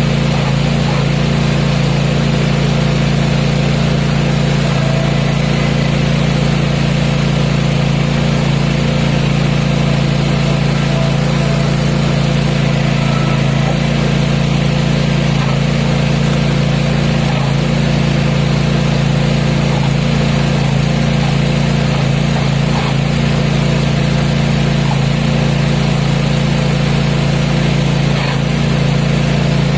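Cub Cadet ZT1 zero-turn mower's engine running steadily at a constant speed.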